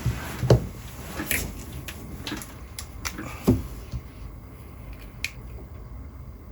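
Sharp clicks and knocks of hard parts being handled, about half a dozen spread over several seconds. The loudest come about half a second in and about three and a half seconds in.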